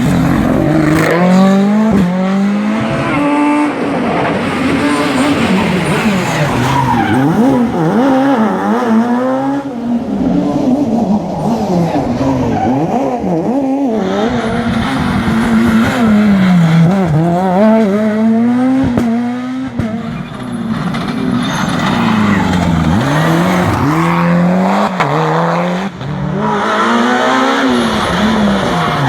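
Rally cars driven hard on a stage, engines revving up and falling back again and again through gear changes and braking, with tyre squeal in the corners.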